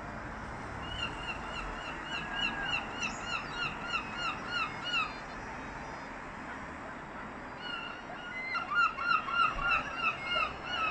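A gull calling: two runs of short, repeated calls, about two to three a second, the second run louder.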